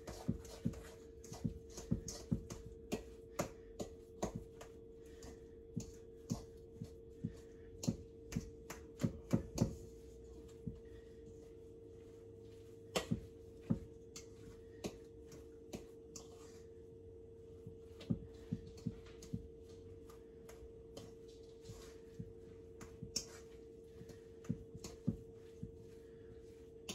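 A utensil clinking and scraping against a stainless steel mixing bowl as mashed potato filling is stirred by hand: sharp clinks at irregular intervals, over a faint steady hum.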